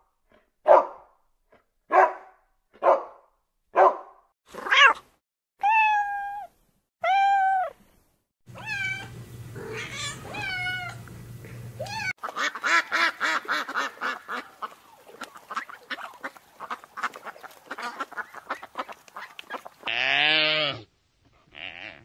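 A series of animal calls: a dog barks about six times, roughly once a second, followed by several drawn-out rising-and-falling cat meows. From about halfway through, a cat makes a long run of rapid chattering calls, and near the end another animal gives one loud call.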